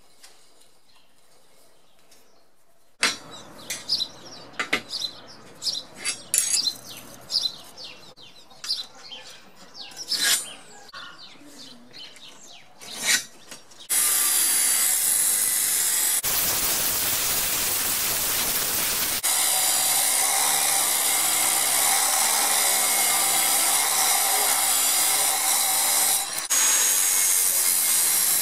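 Angle grinder with an abrasive cutoff disc cutting through steel plate: a loud steady grinding whine that starts abruptly about halfway through and carries on to the end. Before it, scattered short clicks and knocks.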